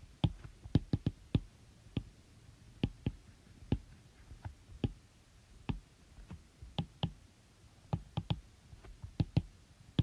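Irregular sharp clicks and taps, two or three a second with short pauses between them.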